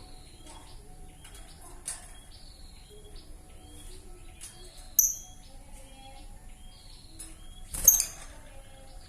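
Young lovebird chattering in a run of short, falling, raspy chirps, with two loud shrill calls, one about five seconds in and one near eight seconds. The voice is still hoarse and rough, as is usual for an immature bird that has not yet settled its song.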